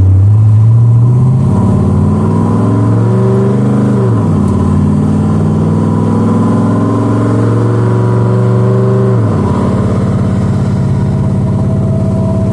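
Car engine pulling through a 4R70W automatic transmission. Its pitch climbs at first, dips briefly about four seconds in, and drops clearly about nine seconds in, as the transmission shifts.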